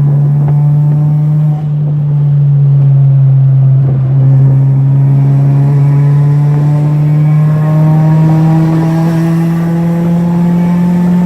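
Honda Civic D16Y8 four-cylinder engine, fitted with a cold air intake, running under steady load as a loud drone whose pitch climbs slowly and evenly as the revs rise.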